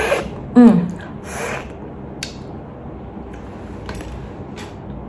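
Eating sounds: a bite into a shrimp, with a short hummed sound falling in pitch about half a second in, the loudest sound. Quiet chewing follows, with a few small clicks and squishes from shells being handled.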